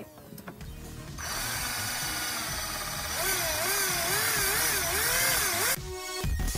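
Hitachi cordless drill running, its motor sped up and slowed repeatedly on the trigger so the pitch rises and falls. It starts about a second in and stops shortly before the end.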